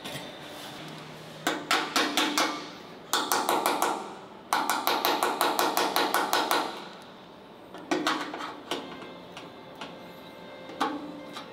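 Hand hammer striking sheet steel in quick runs of several ringing blows, three runs in the first seven seconds, then a few single metal knocks.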